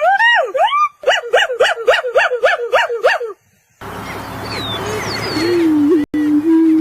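Animal calls: a whistled call sliding up and down, then a quick run of about ten short falling calls, about four a second. After a short break comes a different recording with background hiss and a low, steady hoot near the end.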